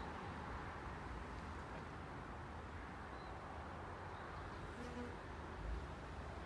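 Two-wheel walking tractor's single-cylinder diesel engine running steadily as it drives a rotary tilling attachment through the soil, a steady buzzing drone with a brief low thump near the end.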